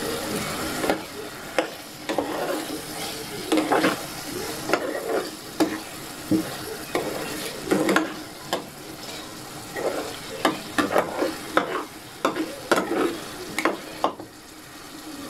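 A stainless-steel ladle stirs thick coconut-milk pork stew in a coated cooking pot, scraping and knocking against the pot in quick, irregular strokes. Under it the stew sizzles steadily on the heat. The stirring stops near the end.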